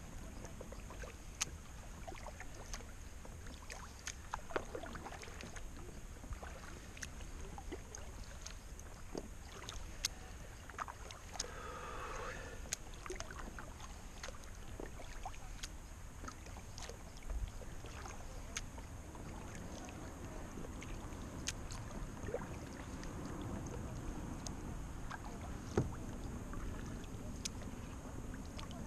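A plastic sit-on-top kayak being paddled on calm water: paddle blades dipping and dripping, with many small irregular ticks and knocks of water and paddle against the hull over a steady low rumble.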